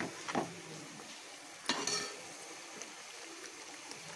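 Metal spoon stirring and scraping thick chicken gravy in a pan over a steady low sizzle. There are two louder scrapes, a small one about half a second in and a bigger one just under two seconds in.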